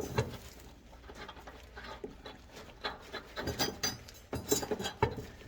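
Faint, scattered metallic clicks and knocks as a mower blade and its blade nut are handled and threaded onto the spindle by hand, over a low steady hum.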